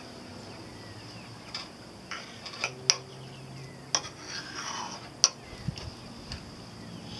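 Metal spoon scooping solid coconut oil and clinking against a ceramic ramekin and the jar: a handful of sharp ticks, the loudest about three and five seconds in.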